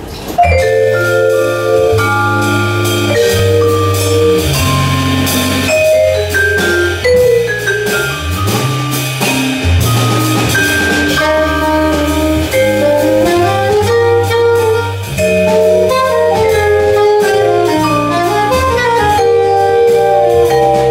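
A live jazz quartet starts suddenly about half a second in, playing a jazz waltz. A soprano saxophone and a vibraphone carry the melody over bass and drums.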